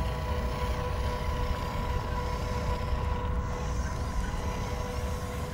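Small electric motor of an RC crawler whining at a steady pitch, over low wind rumble on the microphone.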